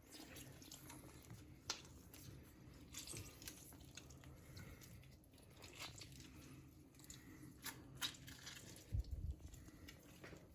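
Faint kitchen handling noises: scattered soft clicks and small knocks from a bowl of flour- and egg-coated chicken pieces as lemon juice or vinegar is added to the marinade, with a slightly louder low knock about nine seconds in.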